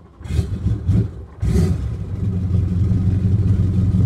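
The boat's inboard-outboard turbo-diesel V8 engines are started from the push button. They fire up over the first second and a half, with a sharp jump in level about a second and a half in, then settle into a steady low idle.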